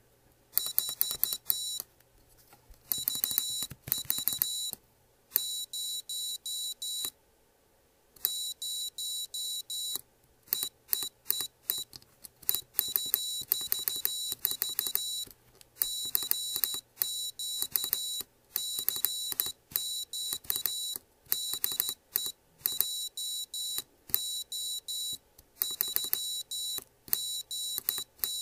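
Piezo buzzer on an IchigoJam microcomputer board sounding a high-pitched Morse code sidetone. A hand-pressed tact switch keys it as a semi-automatic keyer, which sends dashes automatically while the key is held and dots by hand, so the beeps come in irregular short and long runs from about half a second in. Sharp switch clicks come among the beeps.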